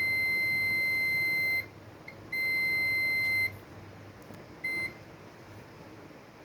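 Electronic beeping at one steady high pitch: a long beep of nearly two seconds, then a tiny blip, a second beep of about a second, and a short one near five seconds in.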